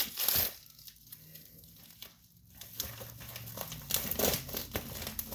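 Paper and plastic rustling and crinkling as a mailing envelope is cut open with scissors: a loud rustle at the start, a lull, then busier crinkling from about halfway on.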